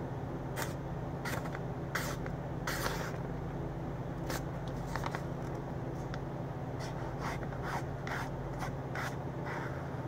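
A sharp knife blade slicing through a hanging sheet of lined notebook paper: a dozen or so short, crisp cutting strokes at irregular intervals, with a steady low hum beneath.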